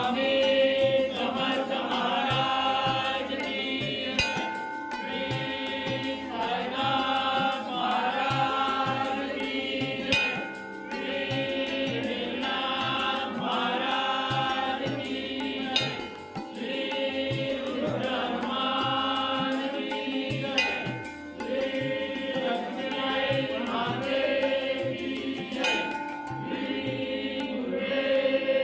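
Devotional chant sung to music over a steady, regular drum beat.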